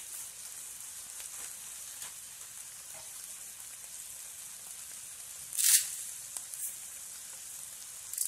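Sausage, onion and tomato frying in a pan: a steady high sizzle with a few faint crackles. About five and a half seconds in comes one brief, much louder hiss as the dry spaghetti on top is shifted.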